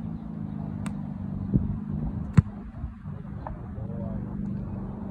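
A football being punted: one sharp thump of the foot striking the ball about two and a half seconds in, with a smaller knock a second before it, over a steady low hum.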